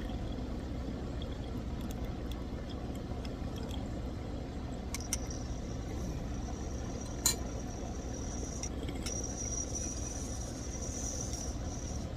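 Glass clinking: a few light taps and one sharp clink about seven seconds in. From about five seconds in, a thin steady high whistle runs over a low background hum, with a brief break partway through.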